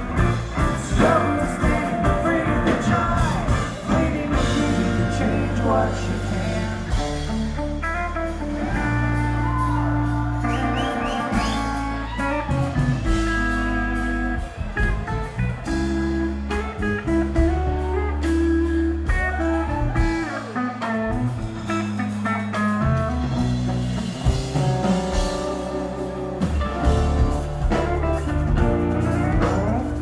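Live rock band playing: electric guitar lines with bends over sustained bass, drums and keyboards, recorded loud from the crowd on a phone.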